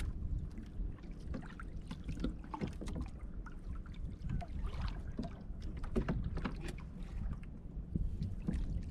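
Steady low rumble of wind on the microphone and water against a small outrigger canoe, with many small, irregular knocks and clicks as fish and gear are handled in the boat.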